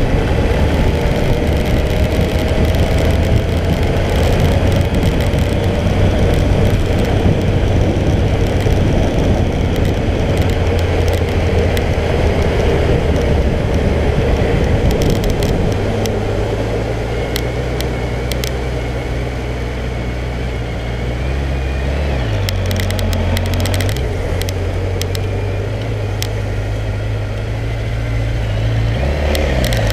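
Suzuki GSX1400 inline-four motorcycle engine under way, with a heavy rush of wind and road noise at motorway speed. About halfway through, the wind noise eases and the engine settles to a steady low hum as the bike slows into queued traffic. Its note dips and recovers briefly twice near the end.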